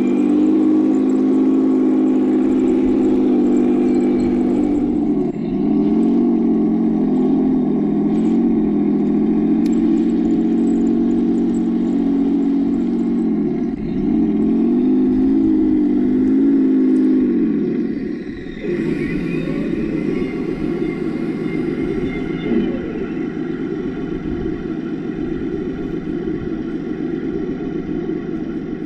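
Heng Long RC tank's electronic sound unit playing a simulated tank engine through its small speaker. The engine pitch dips and climbs back twice, then the sound turns rougher and less tonal about two-thirds of the way through.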